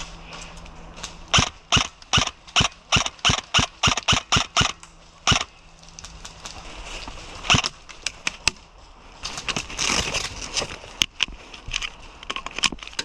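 Airsoft gun firing a rapid string of single shots, a sharp snap about three times a second, some dozen in all over about four seconds. A few more scattered shots follow later.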